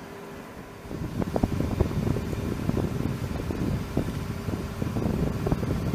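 Aircraft engines running on a flight line: a steady low rumble with uneven rushing and buffeting over it, growing louder about a second in.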